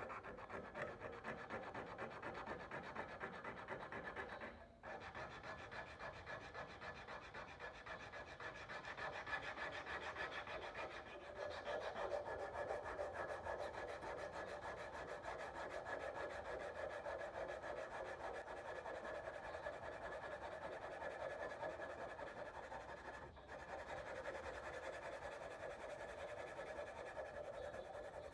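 Hand-held sandpaper rubbed rapidly back and forth over the flat of a steel cleaver blade, scouring rust and pitting from its surface. The scraping runs on continuously, breaking off briefly about five seconds in and again near the end.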